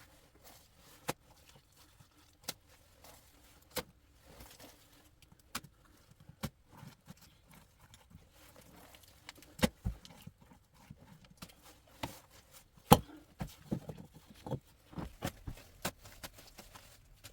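Irregular sharp knocks and clacks of hard objects striking, one or two a second, some with a dull low thud, the loudest about 13 seconds in.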